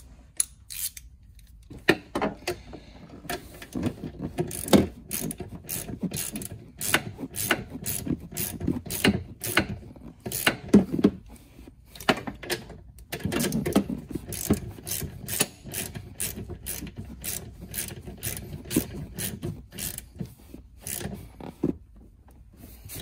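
Socket ratchet clicking in quick runs, with short pauses, as 13 mm nuts are run down onto a golf cart solenoid's terminal posts.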